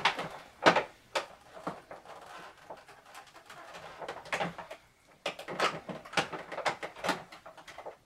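Irregular clicks, taps and rustles of hard plastic being handled: toy starship models and clear plastic packaging. The clicks come close together in the second half.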